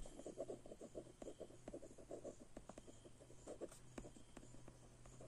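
Pen writing on paper: faint, quick scratching strokes with a few sharper ticks, over a steady low hum.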